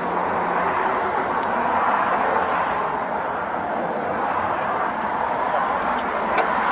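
Steady road traffic noise from the street beside the stop, with a couple of sharp clicks about six seconds in.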